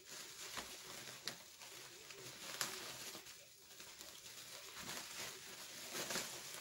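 Rustling and crinkling of a woven plastic sack being cut and pulled open by hand, with a few small clicks.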